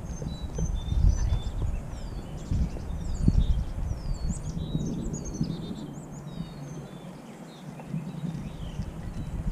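Birds chirping and calling in the roadside trees: many short, high notes, some sliding down in pitch. Under them runs a low rumble of wind on the microphone from the rolling bicycle, which thins out for a couple of seconds past the middle.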